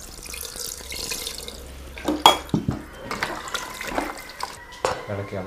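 Water poured from a steel tumbler into an aluminium pressure cooker of masala-coated beef, a soft splashing hiss for about the first two seconds. Then a hand mixes the wet meat in the pot, with squelching and a few sharp knocks.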